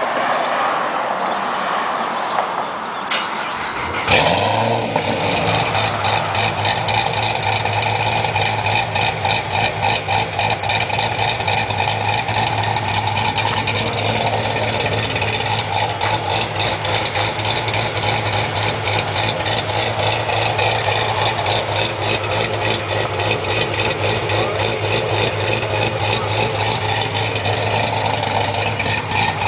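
Supercharged engine with a JRE Rough Idle Blower Cam, cranked over and catching about four seconds in, then settling into a steady, choppy idle: the lope this camshaft is ground to give.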